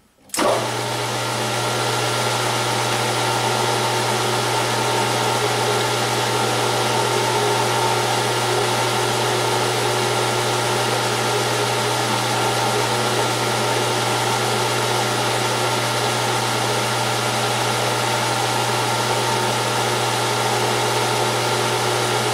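Gear-head metal lathe switched on and running at a steady spindle speed, with a loud, even motor-and-gearbox hum and whine. It starts abruptly just after the opening and keeps an unchanging pitch.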